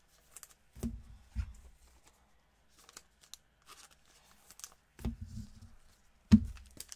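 Gloved hands handling trading cards and plastic pack wrappers on a table: faint rustling and crinkling with small clicks, and a few dull thumps, the loudest about six seconds in.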